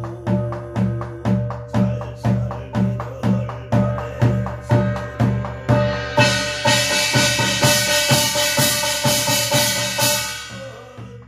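Korean barrel drum (buk) beaten with a stick in a steady beat, a little over two strokes a second, the rhythm of a shaman's gosa chant. From about six seconds in, a bright metallic ringing rises over the beat for several seconds and dies away near the end.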